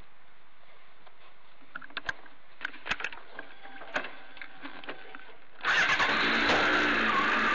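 A few light clicks and knocks, then about five and a half seconds in a Honda CBR600F's inline-four engine starts abruptly and runs loudly, heard from a camera mounted on the bike.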